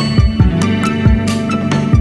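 Background music: soft electronic track with held notes and a steady drum beat.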